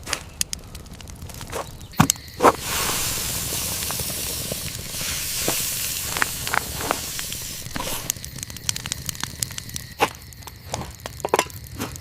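Campfire crackling sound effect: scattered sharp pops and snaps, with a steady hiss from about two and a half seconds in until about eight seconds.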